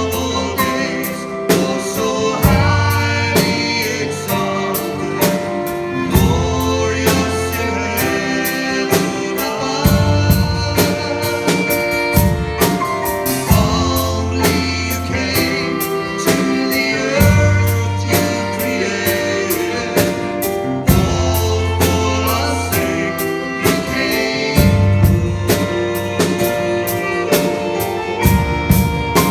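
Worship song with drum kit, bass and singing, at a steady beat.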